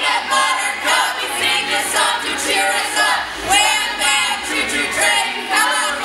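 A small group of men and women singing together.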